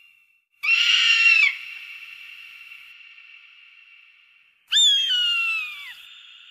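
Bald eagle calling: two high, thin piping calls, the first a quick series of stuttered notes about half a second in, the second a few seconds later starting high and sliding down in pitch, each trailing off in a long fading echo.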